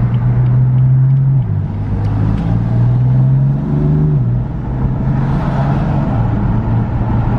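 BMW F80 M3's twin-turbo inline-six, heard from inside the cabin, accelerating through the gears. The engine note climbs, drops at a quick dual-clutch upshift about a second and a half in, climbs again and drops at a second upshift about four seconds in, then holds steady.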